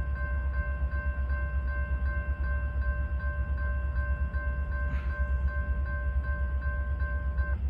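Railroad grade-crossing bell ringing in quick repeated strokes, about three a second, over a steady low rumble. The bell stops shortly before the end.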